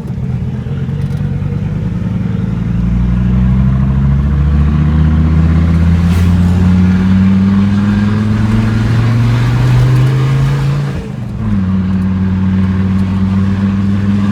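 Fiat Marea Turbo's five-cylinder engine, heard from inside the engine bay, pulling up through the revs under acceleration. About eleven seconds in the pitch drops sharply and the sound dips briefly, as at a gear change, then it pulls on steadily.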